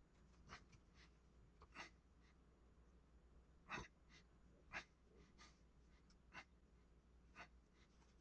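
Near silence, broken by faint short clicks and soft scrapes of hands and tools working at a clay sculpting bench, roughly one a second, the loudest nearly four seconds in.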